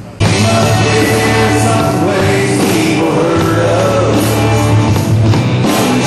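Country-rock band music with a male lead vocal, cutting in suddenly just after the start, over a steady bass and drums.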